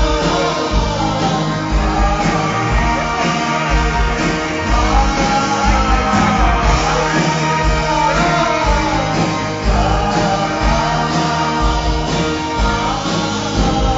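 Live rock band playing a song: electric and acoustic guitars, keyboard and a steady drum beat, with a male lead vocal singing over them.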